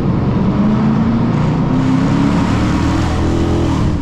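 Dodge Charger R/T V8 engine and exhaust running loud at highway speed, its note climbing gently a couple of times as it accelerates, over steady road and tyre noise.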